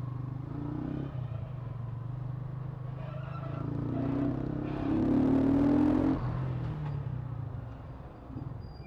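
Yamaha SZ16 motorcycle's engine running while riding, accelerating from about three seconds in with its pitch rising, loudest with rushing wind noise around five to six seconds, then easing off as the throttle is closed.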